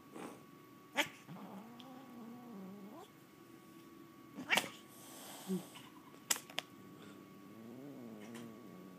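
Domestic cat growling at her own tail: a long low growl that wavers in pitch about a second in and another near the end. Between them come a few sharp spits and a short hiss about halfway through.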